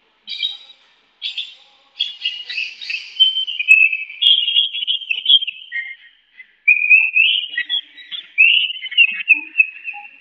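Hwamei (Chinese melodious laughingthrush) singing in its cage: two short calls, then about eight seconds of varied, nearly unbroken whistled warbling.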